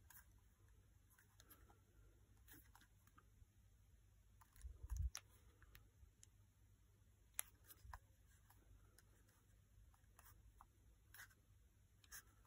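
Faint handling noise of an air pistol turned over in the hand: scattered small clicks and ticks, with a dull thump about five seconds in that is the loudest sound.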